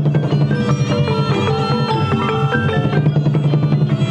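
Khmer pinpeat ensemble playing: quick runs of short pitched notes from xylophones and gong circles over steady drumming, with a reedy sralai oboe line.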